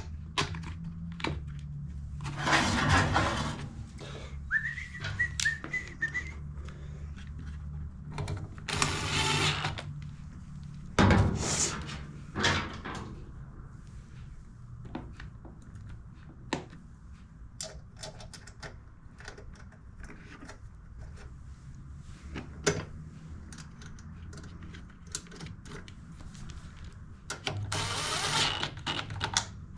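Hand-work noises on a small generator being reassembled: scattered clicks and knocks, and several short noisy rustling bursts of about a second each, over a low steady hum. A few short whistled notes come about five seconds in.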